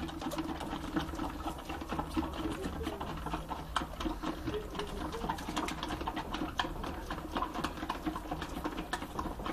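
Several goat kids sucking at the teats of a multi-teat bucket feeder: a fast, irregular run of sucking clicks over a steady low hum.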